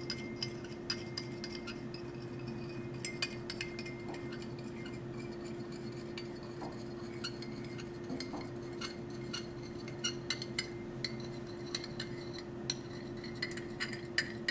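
Glass stirring rod stirring salt water in a glass beaker, clicking lightly and irregularly against the beaker wall as the sodium chloride dissolves. A steady low hum runs underneath.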